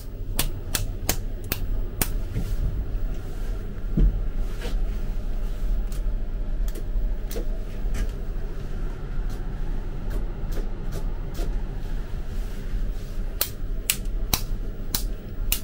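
A steady low machine hum with sharp clicks and knocks scattered through it, bunched in the first two seconds and again near the end.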